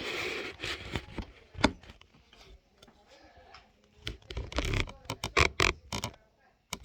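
Clicks, taps and scraping of a plastic toy car being handled and pushed into place, with one sharp click under two seconds in and a busier run of clicks and rubbing in the last few seconds.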